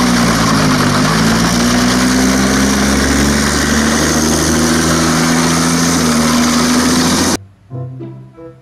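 Engine of a tracked self-propelled howitzer running loud and steady as the vehicle drives, with a hiss over the low engine tone; it cuts off abruptly near the end.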